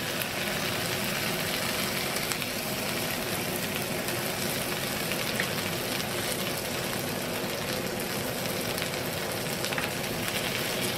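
Onions and tomato paste sizzling steadily in hot oil in a frying pan.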